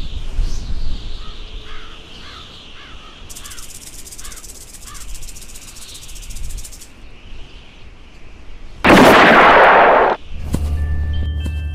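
Outdoor ambience with a bird calling about six times and a rapid rattling buzz for a few seconds, then a single loud blast, a gunshot effect, about nine seconds in that lasts about a second. Music with sustained chiming tones comes in just after it.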